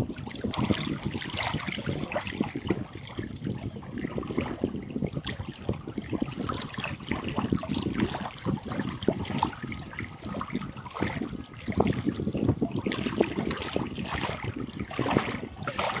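Small lake waves lapping against a rocky, pebbly shore, an uneven run of little splashes that never settles into a rhythm.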